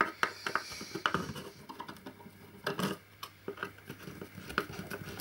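Hand screwdriver backing screws out of an aluminium heatsink case, making irregular small metallic clicks and scrapes.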